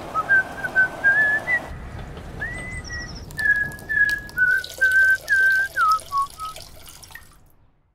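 A man whistling a tune: a run of short held notes with little slides between them. The tune drifts lower near the end and stops about seven seconds in.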